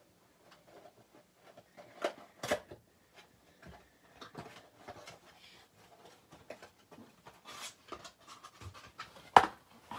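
Thin cardboard box being pulled open and its flaps unfolded by hand: irregular rustling and scraping of paperboard, with a couple of sharp knocks about two seconds in and a louder sharp snap near the end.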